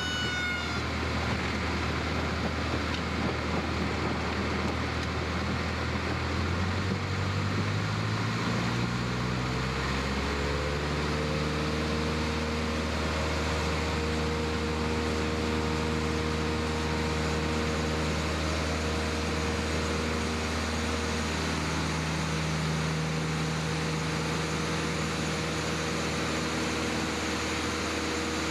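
Single-engine Cessna's piston engine and propeller heard from inside the cabin, speeding up about six to ten seconds in, then running steadily as the plane rolls along the ground.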